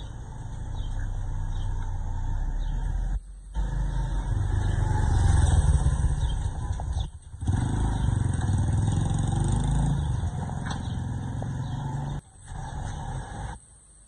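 Honda City sedan's engine running with a steady low rumble, loudest about halfway through. The sound cuts out briefly a few times.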